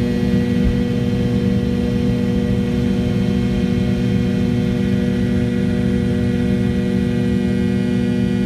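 Pratt & Whitney JT8D turbofan engines of an MD-82 airliner heard from inside the cabin: a steady, loud, low drone with a whine, its higher whining tones fading over the first couple of seconds.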